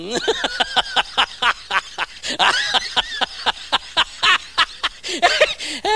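High-pitched cackling laughter, a long run of short, sharp cackles at about five a second, each rising and falling in pitch. It is a laugh sound laid over pictures of a lion, not a lion's own voice.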